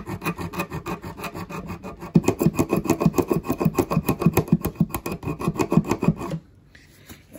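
EZ Stroke hand saw cutting into the plastic body of a push-fit shutoff valve on CPVC pipe, in rapid back-and-forth strokes. The strokes grow louder after about two seconds and stop about a second before the end.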